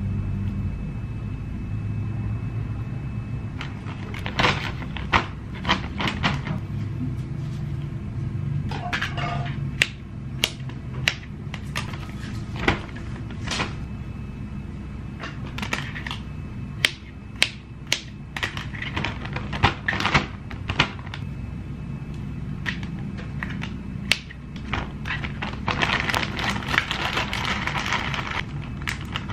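Sharp clicks and knocks of a knife on a plastic cutting board as bananas are peeled and cut. Near the end a plastic zip-lock bag crinkles as the pieces are handled in it. Soft background music runs underneath.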